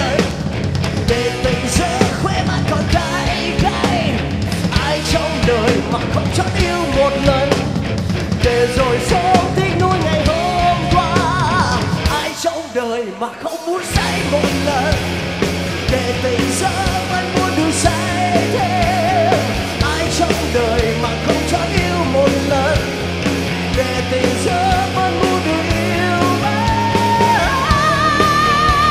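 Live rock band playing loud, distorted rock with electric guitars, bass and drums in a passage without lyrics, the lead line wavering in pitch. The band breaks off for about a second and a half near the middle, then comes back in.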